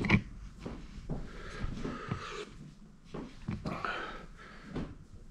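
Scattered knocks, bumps and rustles of a person moving about close to the microphone and handling things in a small room, the sharpest knock right at the start.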